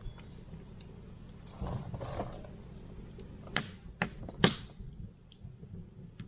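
Wood campfire crackling, with three sharp, loud pops of burning firewood about half a second apart a little past halfway, after a softer rustling crackle about two seconds in.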